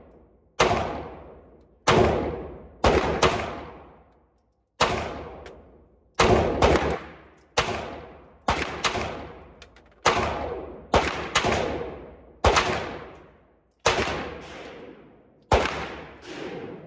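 FMK 9C1 Gen 2 9mm pistol firing about fifteen shots, roughly one a second with some fired in quick pairs. Each shot rings on in a long echo off the indoor range.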